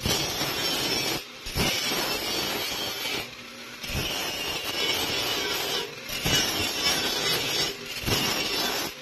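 Electric angle grinder grinding protruding bits off a van's steel floor, its disc screeching against the metal in repeated passes with several short breaks as it is lifted off.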